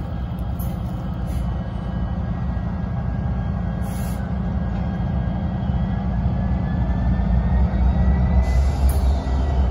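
Canadian National EMD SD75I diesel locomotive approaching at the head of a train: a steady low engine rumble that grows louder over the last few seconds.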